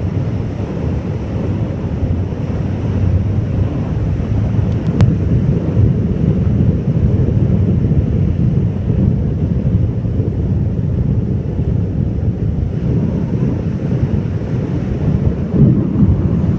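Ocean surf washing onto a beach, heavily overlaid by wind buffeting the microphone in a steady low rumble.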